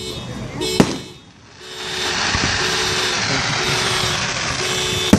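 Consumer fireworks: a sharp bang about a second in, then about three seconds of loud steady hissing, and another bang at the end. A car alarm's repeating tone sounds underneath throughout.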